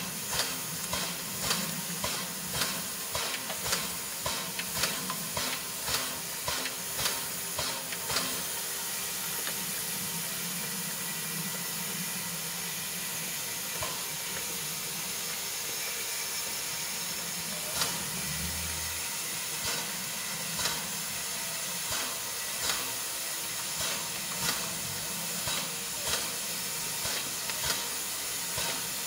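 Steam locomotive standing with steam hissing steadily, over a low hum. Short regular puffs come about two a second at first, die away for several seconds, then return about once a second.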